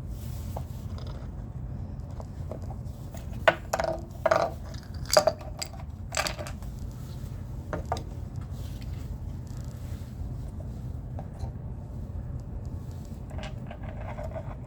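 Small hard objects clinking and knocking against each other a handful of times as they are handled, over a steady low hum.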